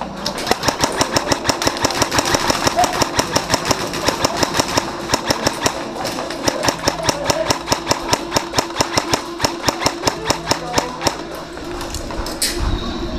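Airsoft electric guns (AEGs) firing long strings of rapid shots: a fast mechanical rattle with a steady hum under it, thinning out about eleven seconds in. A single thump follows near the end.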